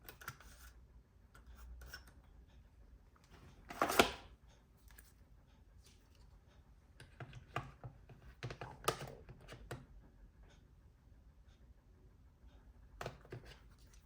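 Scattered light clicks and taps from hands working on a laptop, with one louder knock about four seconds in and a quick run of clicks later on.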